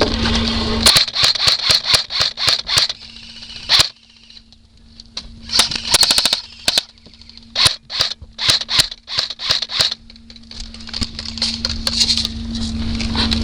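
Airsoft guns firing: a string of sharp single pops for the first few seconds, a short pause, then more shots including a quick burst about six seconds in. A steady low hum runs underneath, strongest at the start and end.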